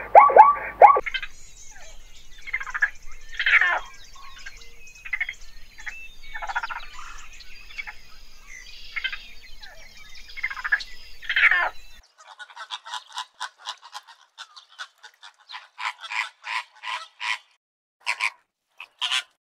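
A series of short, repeated animal calls in several runs, with a faint high steady tone under the middle part; after about twelve seconds the calls come as a quick train, about three a second.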